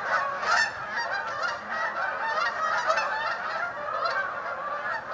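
A large flock of geese honking as they fly overhead, many calls overlapping into a continuous cacophony.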